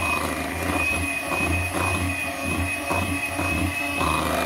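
Electric hand mixer running at a steady speed, its beaters whirring through creamy cake batter in a glass bowl, with a constant high motor whine over a low hum.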